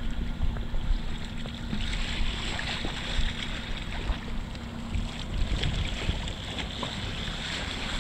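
Wind buffeting the microphone and choppy sea water slapping and splashing against the hulls, with a low steady hum underneath.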